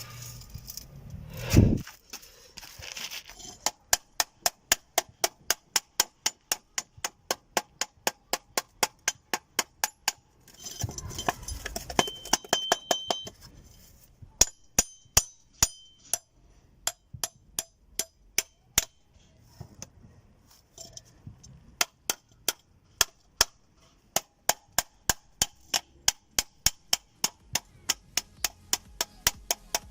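Hammer striking metal in quick runs of light, sharp blows, about three a second, with short pauses between the runs.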